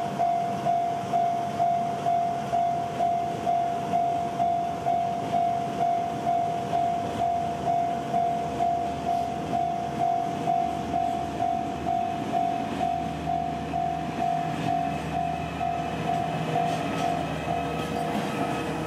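A railway level-crossing alarm rings as an evenly pulsing electronic tone, about two and a half beats a second. About two-thirds of the way in, the steady running of a diesel freight train comes in beneath it as the train draws near.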